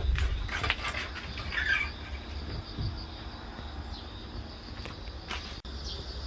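Insects chirring steadily outdoors, with a few short rustles and clicks in the first two seconds.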